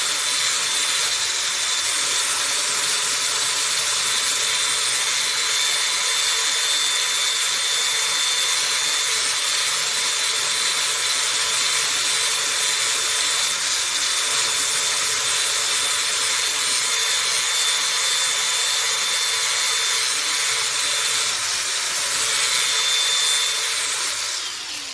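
Electric power sander running steadily as it grinds the edge of a steel lawn mower blade, a constant hissing grind with a high whine; it stops and spins down near the end.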